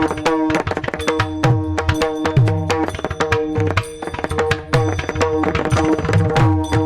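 Instrumental devotional kirtan accompaniment: a hand drum played in a fast rhythm, its bass strokes bending in pitch, over a sustained harmonium.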